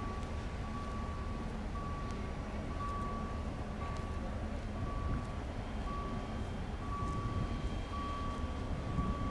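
An electronic warning beeper sounding a steady tone about once a second, over a continuous low rumble.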